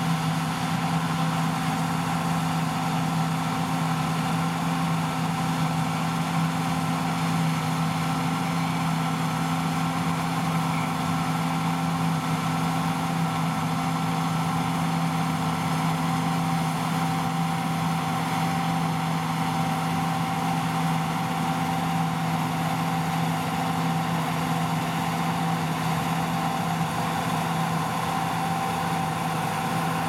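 John Deere T560 combine harvester running steadily under load while cutting winter barley: a constant engine and threshing drone with a steady whine over it.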